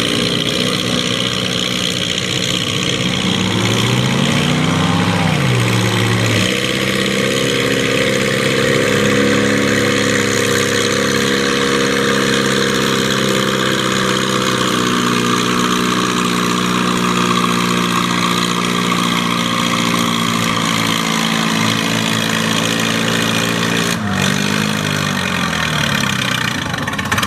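Farm tractor engine in a tractor pull: it revs up and back once, then runs hard at high revs for about seventeen seconds under the load of the pulling sled, its pitch slowly sagging. Near the end the revs drop and swing up and down as the throttle comes off.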